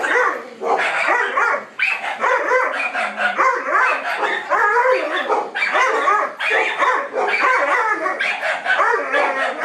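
A small dog-reactive dog barking frantically and almost without a break, in rapid strings of barks with only brief pauses, aggressive toward a larger dog.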